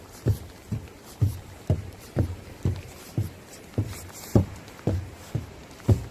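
Walking footsteps at a steady pace, about two steps a second, each a dull low thump.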